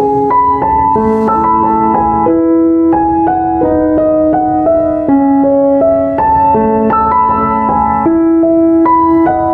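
Background music: a keyboard melody of held notes changing every half second or so.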